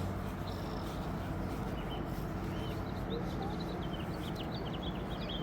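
Faint bird chirps in a quick series of short high notes over the second half, over steady low background noise.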